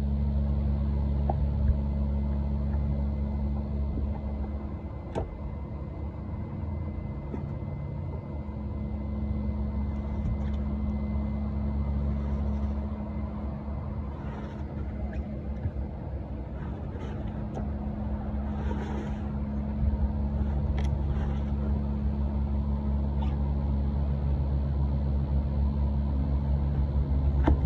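A steady low machine hum, with a few faint knocks and rustles.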